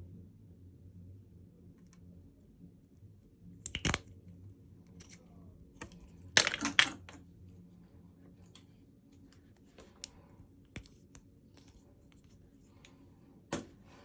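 Packaging and small items being handled during an unboxing: scattered clicks and taps, a sharp click about four seconds in, a louder clatter and rustle around six and a half seconds in, and another sharp click near the end.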